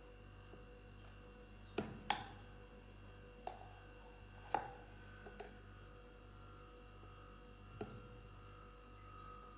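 A steel spoon knocks lightly against a small bowl and a plastic blender jar while soft food is scooped from one into the other. There are several separate clicks, the loudest about two seconds in, over a faint steady hum.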